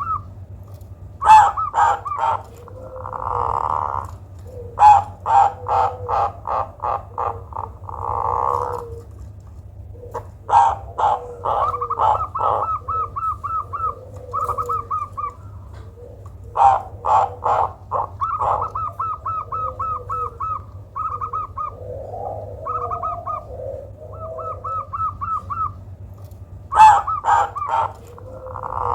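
Perkutut (zebra dove) calling in repeated phrases. Fast runs of short ticking notes alternate with loud sharp notes and lower coos. This is the unusual perkutut call that is said to work well as a lure to set other doves singing.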